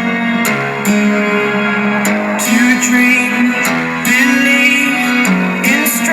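Music with a plucked guitar over a bass line that steps between notes, played through the John Barrel Swing 2 2.1-channel home theatre speakers.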